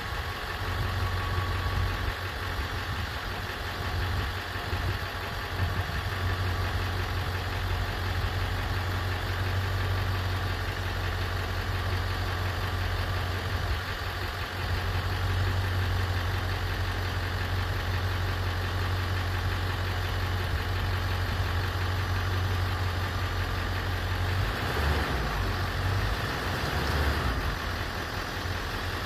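1999 Ford F550 Super Duty's 7.3-litre Power Stroke V8 turbo-diesel idling steadily, with a deep even hum. Near the end the running note wavers for a couple of seconds.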